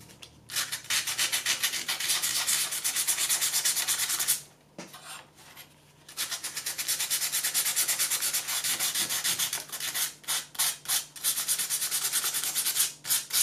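800-grit sandpaper rubbed by hand in quick back-and-forth strokes over a small milled copper-clad circuit board, taking the burrs off the engraved tracks. The rubbing stops for about a second and a half a third of the way in, then resumes, breaking into a few separate strokes near the end.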